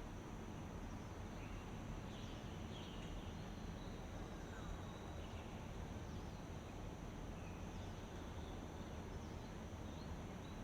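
Outdoor nature ambience: a steady high insect trill with scattered short bird chirps over a constant low rumble.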